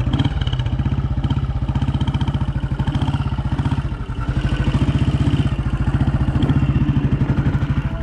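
Royal Enfield 350 AVL single-cylinder motorcycle engine running at low speed on a dirt trail, with a rapid, even thump. It eases off about halfway and picks up again.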